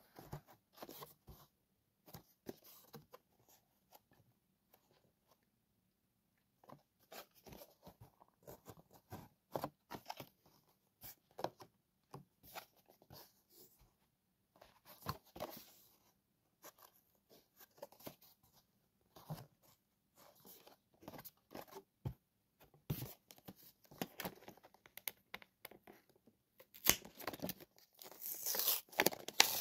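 Clear plastic and card packaging of a boxed diecast toy car crinkling and clicking as hands handle it, in irregular bursts that grow louder near the end.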